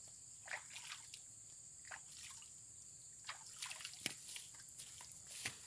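Faint drips and small splashes of water at the river's edge, scattered about once a second, with two sharper clicks in the last two seconds.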